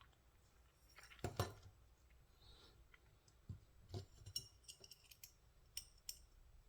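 Faint, scattered clicks and light metallic ticks of small folding-knife parts being handled during reassembly, with one louder click about a second and a half in and a run of small ticks later on.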